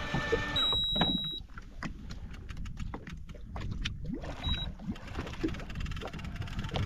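Daiwa Seapower electric fishing reel whining as it winds line in from the deep; its motor tone drops and cuts out about half a second in. Then water slaps and laps at the jet ski's hull, with irregular knocks.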